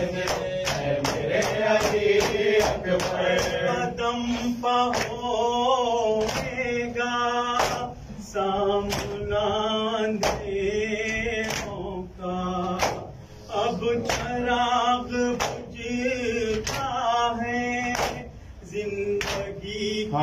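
Male voices singing an Urdu noha lament, over the sharp slaps of open palms striking chests (matam) in a steady beat.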